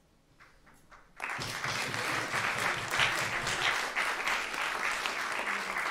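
Audience applauding, starting suddenly about a second in after a moment of quiet room and carrying on steadily.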